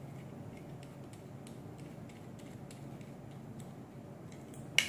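Faint scattered clicks and ticks of an air rifle's metal receiver and lever being handled, with a sharper click near the end, over a low steady hum.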